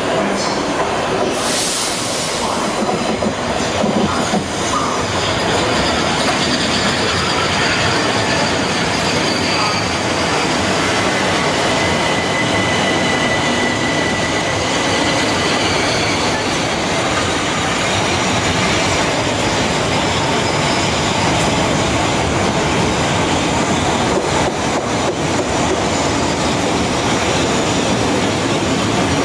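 Southeastern Electrostar electric multiple unit running slowly along the platform: steady rumble of wheels on rail, with a brief hiss about two seconds in and a thin wheel or brake squeal in the middle.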